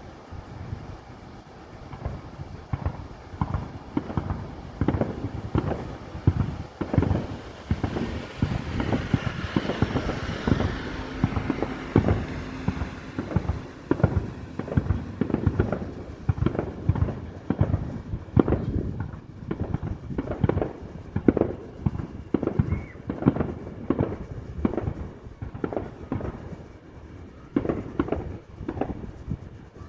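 Fireworks display: a rapid volley of aerial shells bursting, one booming report after another, with a sizzling crackle of glittering shells around the middle.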